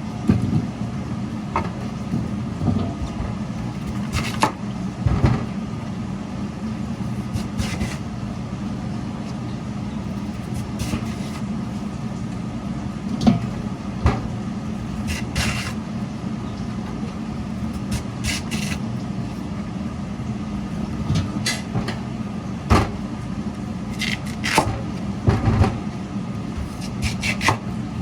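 Radish-slicing food machine running with a steady motor hum, with irregular clicks and clattering knocks.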